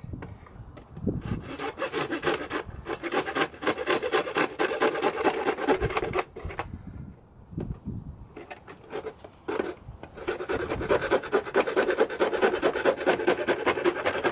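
Small handsaw cutting through the plastic mounting fins of a motorcycle's rear fender in quick back-and-forth strokes, with a pause of about two seconds midway before the sawing resumes.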